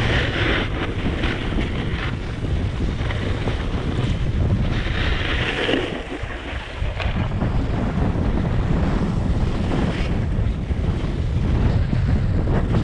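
Wind rumbling steadily on the action camera's microphone while a snowboard slides down packed snow. The board's edges scrape the snow in two hissing spells, one at the start and one about five seconds in. The rumble drops briefly about six seconds in.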